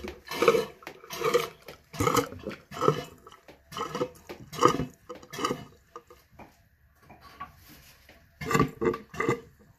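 Hand pump sucking water out of a toilet bowl through a hose, with a slurping gurgle on each stroke, about one stroke every 0.8 seconds. The strokes stop about six seconds in, and two more come near the end.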